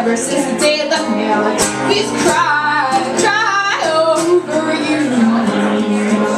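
A woman singing a folk song, backed by a strummed acoustic guitar and a banjo drum beaten with a stick.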